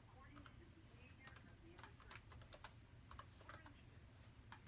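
Faint, irregular clicking of typing on a laptop keyboard.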